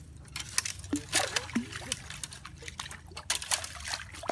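Footsteps through a shallow creek strewn with dry bamboo and leaves: scattered crackling and snapping of twigs and leaves, with small splashes and trickling of water.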